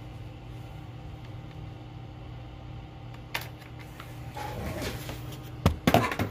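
Steady low hum with an occasional light tap; near the end a quick cluster of clicks and knocks as the plastic bug deflector visor is picked up and handled on the workbench.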